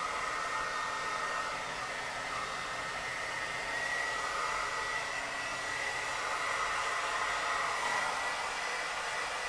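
Handheld hair dryer blowing steadily: a constant rush of air with a thin high whine, the sound of the airflow shifting slightly as the dryer is moved about the hair.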